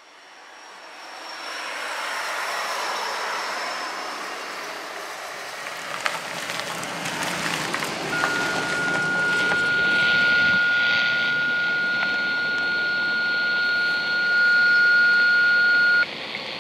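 Passing vehicle noise swells and fades. About eight seconds in, a steady high alert tone from a radio scanner starts abruptly and holds for about eight seconds, then cuts off suddenly, just ahead of a dispatcher's announcement.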